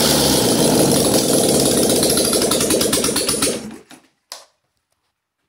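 Citroën GS air-cooled flat-four engine running on its first start after a rebuild, not yet tuned or warmed up. It runs loud and steady with a fast even beat, then falls away about three and a half seconds in, followed by a single short click.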